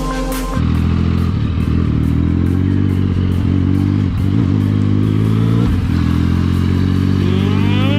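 Yamaha MT-09's three-cylinder engine running at a steady road speed, with two brief dips in its note partway through. A rising whine begins near the end.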